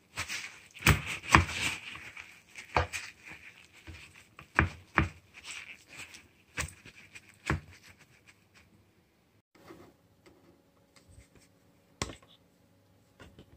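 Paper towel rubbing and patting a raw whole chicken dry on a wooden cutting board: rustling with frequent sharp knocks. About eight seconds in it turns to only a few faint handling sounds.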